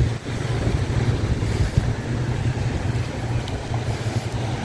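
Wind buffeting the microphone in a steady, choppy low rumble, with surf washing on the beach behind it.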